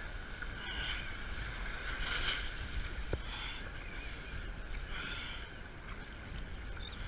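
Surf and water rushing around a sit-on-top kayak as it is paddled out through breaking waves, with a paddle splash coming about every second and a half. A low wind rumble sits on the microphone, and there is a single sharp click about three seconds in.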